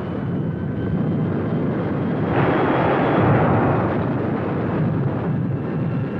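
Battle sound effects laid over wartime film: a steady low rumble, with a louder blast of noise that starts abruptly about two seconds in and dies away about three seconds later.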